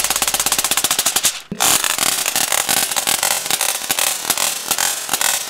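Spin Master Racing Toothless flying dragon toy flapping its wings, driven by its wound-up rubber band: a fast, loud clatter. It breaks off for a moment about a second and a half in, then carries on and slowly gets slower as the rubber band unwinds.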